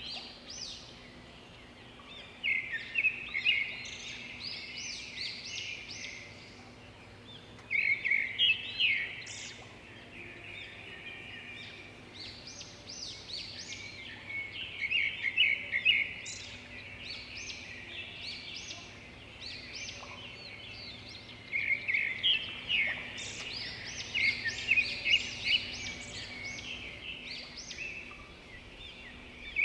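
Birds chirping in quick clusters of high chirps, several bursts a few seconds apart, over a faint steady low hum.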